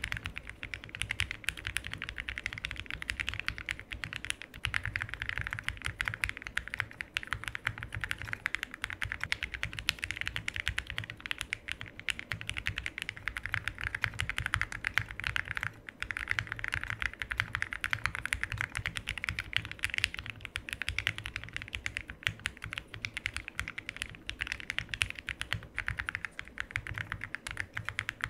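Fast, continuous typing on a mechanical keyboard fitted with JSA-profile PBT keycaps: a dense run of keystrokes played as a sound test of the keycaps, with a brief pause about halfway through.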